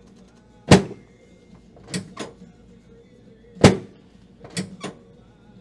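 Sharp knocks during a chiropractic adjustment, about seven in all, some in quick pairs. The loudest come about a second in and a little past halfway.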